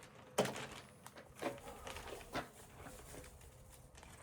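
Faint handling noises as Kool-Aid drink-mix packets and bait containers are handled: a sharp click about half a second in, then two softer knocks, over a faint steady hum.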